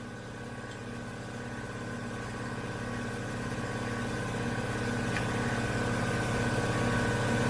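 A steady motor hum with a low buzzing tone, slowly growing louder.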